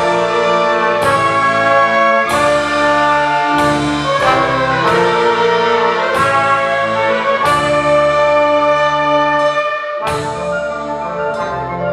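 Orchestral music with brass to the fore: full sustained chords, each struck anew about every second or so.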